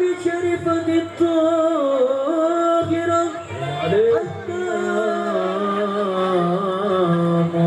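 A solo voice chanting an Arabic mawlid recitation through a PA, drawing out long ornamented notes on a single syllable. A lower steady held note comes in about four seconds in.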